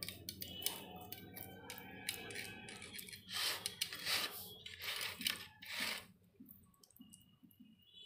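A flat spatula scraping and pressing moist, crumbly kalakand mixture into a square metal tin, with irregular scrapes and light knocks against the tin. The strokes come loudest between about three and six seconds in, then the sound quietens.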